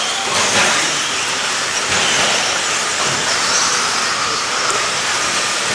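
Electric RC stadium trucks racing: a steady high hiss of motors and tyres on the track, with faint motor whines rising and falling.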